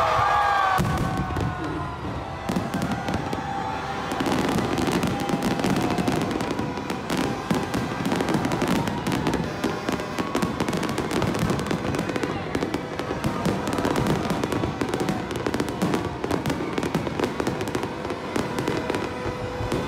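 Aerial fireworks display going off: a dense, continuous run of bangs and crackles that sets in about a second in and keeps going.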